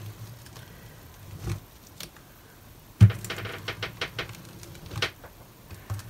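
A flat scraper pulled over a cold wax painting on paper, taking off excess wax: a couple of faint knocks, then a sharp knock about halfway through followed by a run of scratchy clicks for about two seconds.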